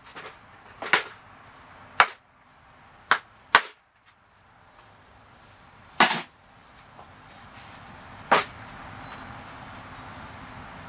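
Hammer striking the scrap-wood bench frame: six sharp knocks at uneven intervals, the last about eight seconds in, followed by a steady faint hum.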